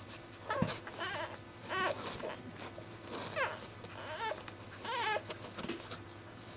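One-week-old basenji puppy squeaking and whimpering in a string of short, arched, high calls, about one a second, as its mother licks it.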